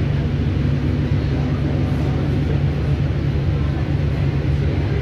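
Steady low rumble of a vehicle in motion, heard from inside the moving vehicle.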